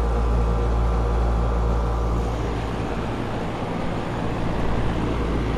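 Lennox central air-conditioner outdoor condensing unit running: a steady low compressor hum under the rush of its fan. It is a pretty noisy unit.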